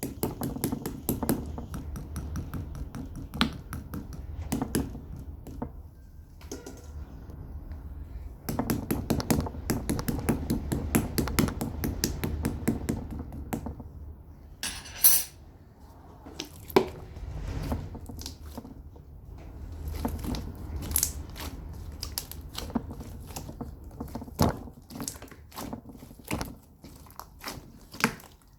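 Bubbly slime being squished and worked by hand, giving dense runs of small popping and crackling clicks as the trapped air bubbles burst, with short quieter pauses between the runs.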